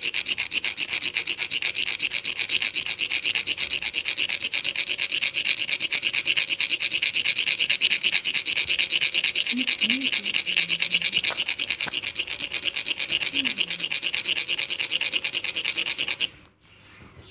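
A hard lotus seed rubbed rapidly back and forth on a rough sil-batta grinding stone, a steady scraping rasp that stops abruptly about a second before the end. The seed's pointed tip is being worn down to scarify it so it will sprout.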